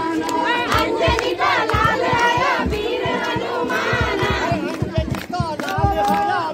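Procession crowd shouting and chanting together, many voices at once, over low thuds repeating about twice a second.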